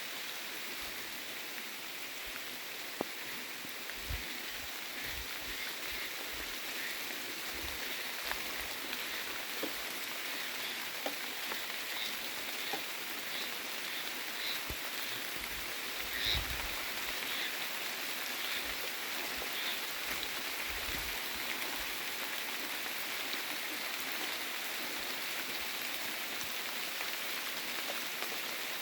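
Steady rain falling, an even hiss with scattered louder drops striking close by.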